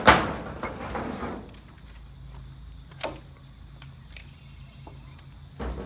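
A sharp knock or clank that rings on for about a second and a half, then a single fainter click about three seconds in, over a low steady hum.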